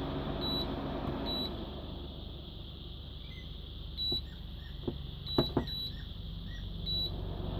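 Induction cooker's control panel beeping as its buttons are pressed after the cooker has thrown an error: six short high beeps at uneven intervals, with a few sharp clicks, over a steady low hum.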